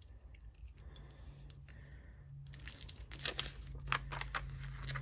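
Sticker labels being peeled from their backing sheet and stuck onto small storage containers: soft peeling and crinkling with small clicks, busier from about halfway through.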